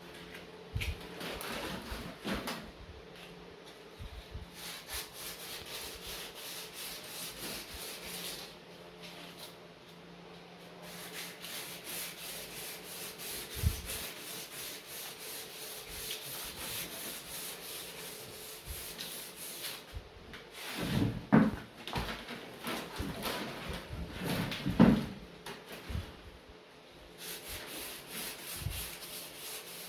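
Rapid rubbing or scraping strokes, like hand sanding, coming in spells, with a faint steady hum in the first third. About two-thirds of the way through come two loud knocks a few seconds apart.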